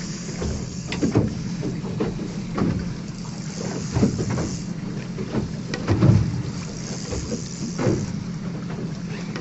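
Boat engine running steadily at idle, a low even hum, with several dull knocks, the loudest about six seconds in, and a steady hiss of wind or water.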